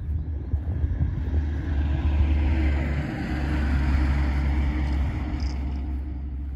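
Wind buffeting the microphone in a steady low rumble, with a rushing noise that swells in the middle and fades near the end.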